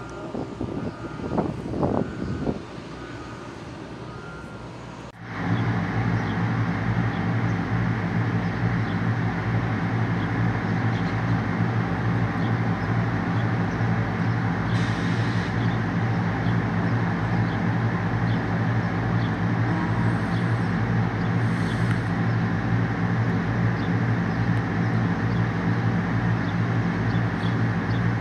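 A large engine running steadily at constant speed. It starts abruptly about five seconds in, after a few seconds of irregular clatter and a brief beeping tone.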